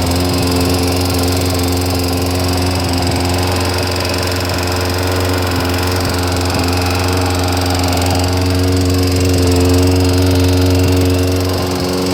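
Kawasaki ZX-9R inline-four motorcycle engine running at fairly steady revs with a mechanical rattle. The owner says the rattle comes only under load or when revving and that the cam chain tension has been ruled out; a garage suggested worn crankshaft bearings.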